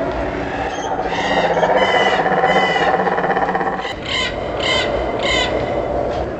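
Harsh bird squawks: three in a row, then three more after a short break, over a steady low drone.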